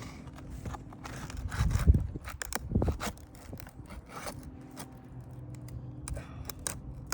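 Asphalt roof shingles being pried up and worked loose with a hand tool to get at the nails: a run of short scrapes and clicks, with dull knocks about two and three seconds in. The shingles are brittle and tear as they are lifted.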